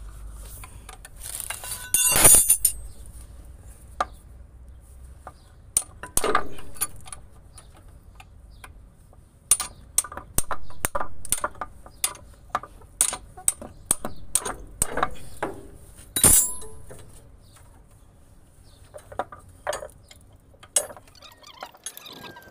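Steel hand tools clinking and knocking against the clutch booster and its mounting under a truck. Sharp metallic taps and clicks come a few per second, with two louder strikes, one about two seconds in and one past the middle.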